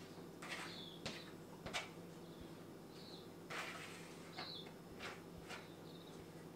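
Raw whitebait being tipped from a plastic container into a plastic scale bowl: several soft, wet slithers and plops of the small fish landing, over a steady low hum.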